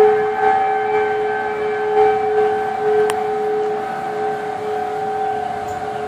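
Outdoor tornado warning sirens sounding a steady alert tone, held at one pitch and wavering slightly in loudness.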